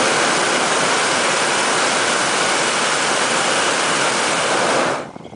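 Hot-air balloon's propane burner firing in one long blast, a loud steady roar that cuts off abruptly near the end.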